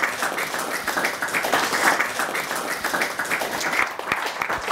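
A small crowd applauding: many hands clapping together in a dense, steady patter.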